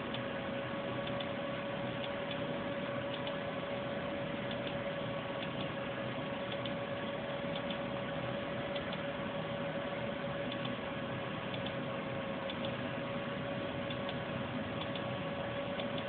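Steady background hiss with a constant hum tone and faint, irregular ticks about once a second.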